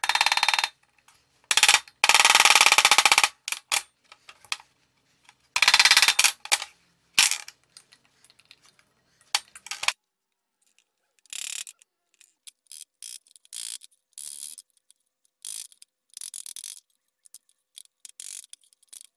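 Hammer tapping a flat-blade screwdriver against the steel bottom cone race of a scooter's steering stem to drive the press-fitted race off. The footage is fast-forwarded, so the metallic taps run together in rapid bursts, loud through the first several seconds, then shorter and quieter bursts later on.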